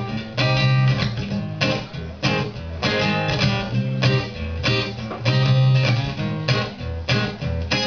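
Acoustic guitar strummed in a steady rhythm, about two chord strokes a second, as an instrumental passage with no singing.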